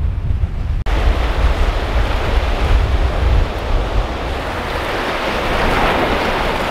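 Waves breaking and washing in over rocks and sand, with wind buffeting the microphone in low rumbles. The rushing wash swells louder toward the end.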